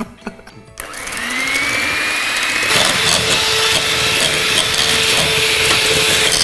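Electric hand mixer switched on about a second in, its motor whine rising as it speeds up, then running steadily, louder from about three seconds in, as its beaters whip a yellow egg mixture in a bowl.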